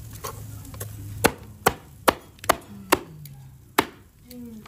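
Meat cleaver chopping grilled chicken on bone on a round wooden chopping board. It makes a series of sharp chops, about two a second, with a short pause before the last one.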